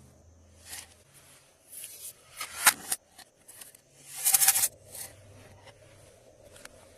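Glossy slime being squished and stretched by hand, giving irregular wet crackling and popping bursts. The loudest come around two and a half seconds in and again about four seconds in.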